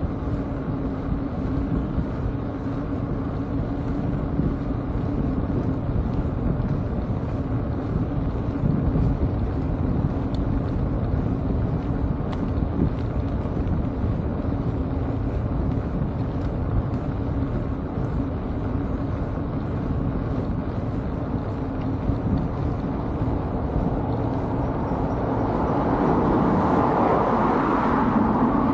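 Steady rush of wind buffeting the microphone and road rumble from a moving bike. Near the end an oncoming car swells up and passes close by.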